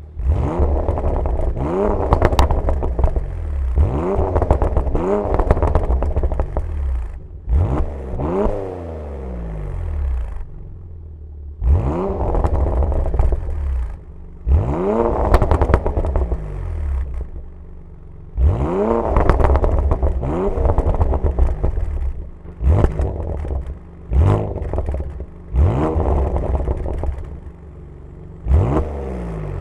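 Porsche Macan Turbo's twin-turbo V6 revved again and again through its exhaust. It makes about a dozen quick blips, each rising sharply in pitch and then dropping away, with crackles and pops as the revs fall.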